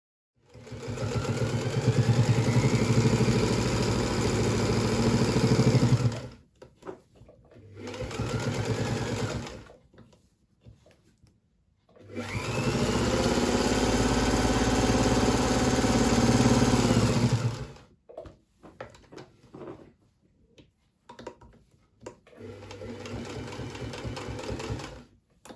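Electric Singer 201K sewing machine stitching in four runs with short pauses between. The longest run is near the middle and the last is quieter. Each run picks up speed at the start and stops suddenly.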